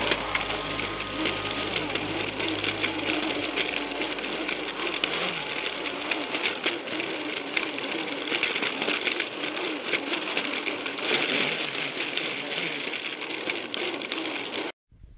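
Plarail toy train's small battery motor and plastic gearbox running with a whirring, clicking rattle, heard from a camera riding on the train, the whine wavering as it rolls over the plastic track. It cuts off suddenly near the end.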